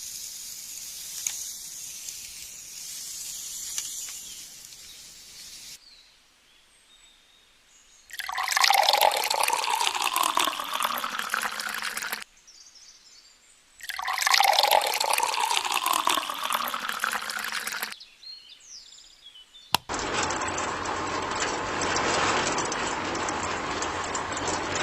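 Water pouring and splashing in several short takes, two loud stretches with a shifting pitch as the vessel fills, then a steady run of noise.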